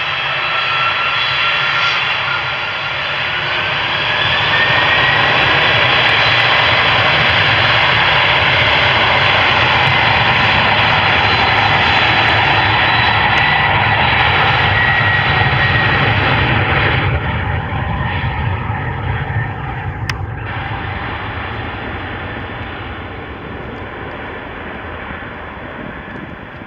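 Boeing 767's twin turbofan engines spooling up with a rising whine, then running loud and steady at takeoff power. The sound fades from about two-thirds of the way through as the jet accelerates away down the runway.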